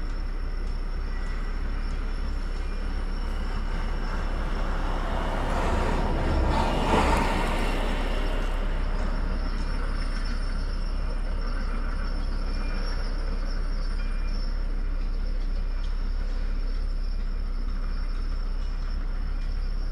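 Steady low outdoor rumble, with a vehicle passing by that swells and fades about five to nine seconds in.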